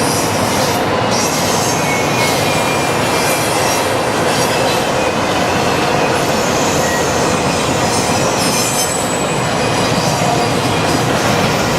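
Freight cars of a long CN train rolling past on the rails: a steady, loud run of wheel-on-rail noise with thin, high wheel squeal over it.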